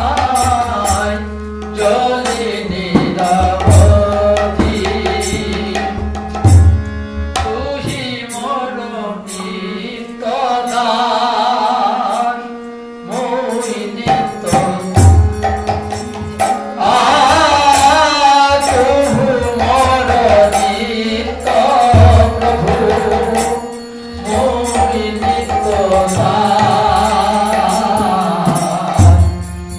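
Bengali devotional song (guru vandana) sung by a man to harmonium accompaniment, with deep khol drum strokes every few seconds.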